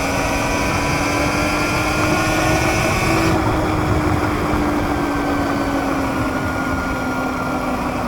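Sur-Ron electric dirt bike's motor whining steadily while riding, its pitch rising slightly about three seconds in and then slowly falling, over a dense low rumble. A higher whine stops about three seconds in.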